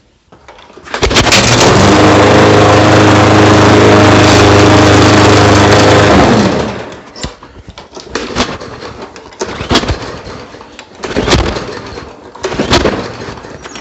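Briggs & Stratton push-mower engine pull-started: it catches and runs loud and steady for about five seconds, then dies, followed by four more pulls on the recoil starter about a second and a half apart that don't catch. The engine is cold and short of prime.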